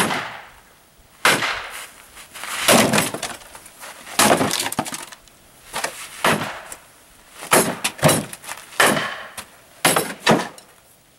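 AR-15 switch-barrel upper receiver and barrel slammed repeatedly against a wooden sawhorse: about ten hard blows, roughly one a second, each a crash with a short rattling ring.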